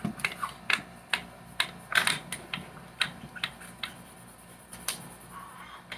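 Irregular clicks and taps of Sharpie markers being handled: caps pulled off and snapped on, markers set down on the counter and tips knocking on paper, a few clicks a second.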